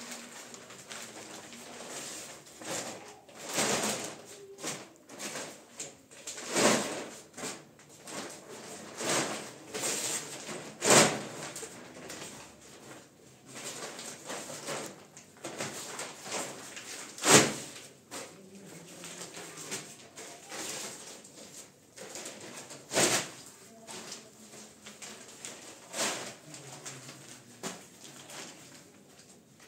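Rustling and crinkling of red covers as they are shaken out and folded, with several sharp flaps and crackles scattered through it, the loudest two about eleven and seventeen seconds in.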